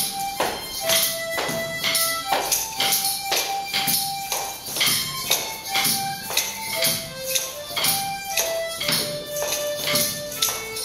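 Group of harmonicas playing a slow melody together in long held notes, with hand percussion keeping time at about two hits a second.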